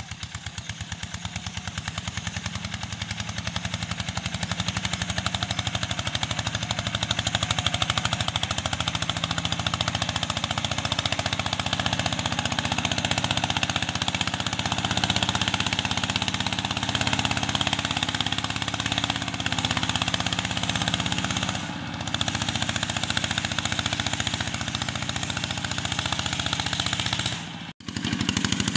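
Two-wheel walking tractor's single-cylinder diesel engine chugging steadily under load as it pulls a disc plow through the soil, with a rapid, even firing beat; a loud sound. It breaks off briefly near the end and resumes.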